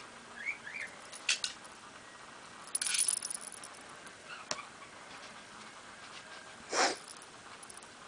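A dog moving about on carpet, with a few light jingling clicks and rattles, a brief jingle about three seconds in, and a couple of short high squeaks about half a second in. A short, louder hissing burst comes near the end.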